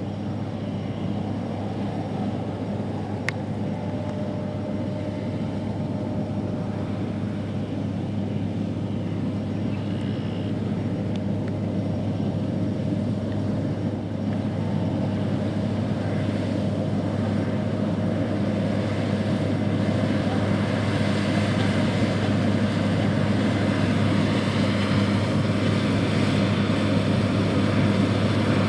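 New Holland CR8090 combine harvesting wheat: the steady, deep drone of its diesel engine and threshing machinery running, growing gradually louder. A single sharp click about three seconds in.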